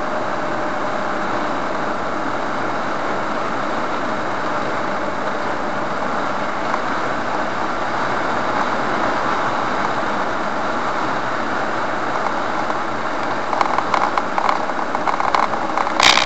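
Steady road and engine noise of a car driving at motorway speed. About three-quarters of the way through, rougher, uneven surges of noise join it and grow louder near the end.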